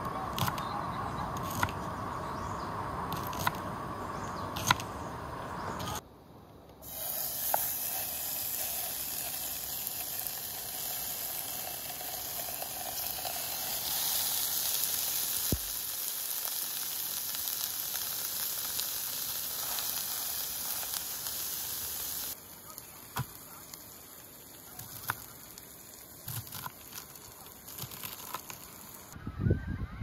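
Knife chopping on a wooden cutting board, a run of sharp taps, then pork belly frying in a pan, a loud steady sizzle that turns quieter near the end.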